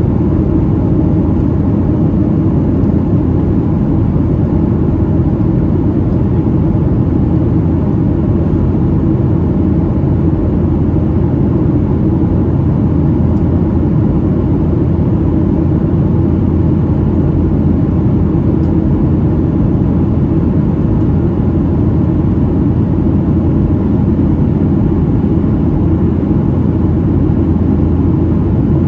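Steady cabin noise of a Boeing 737-800 in flight, its CFM56-7B engines and the airflow making a constant low rumble heard from inside the cabin.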